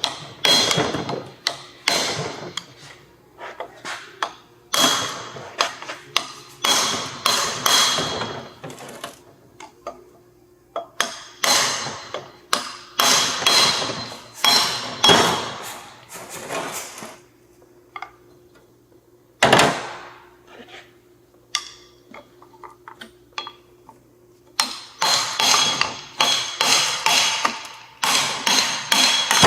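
Repeated hammer blows on metal, each ringing briefly, in runs of quick strikes with pauses between, as the end shafts are knocked out of the Miata's welded differential.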